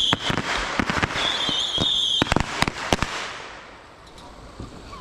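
Fireworks going off close by: a high whistle, a run of sharp cracks and bangs, and a second whistle about a second in. The cracking dies away after about three seconds.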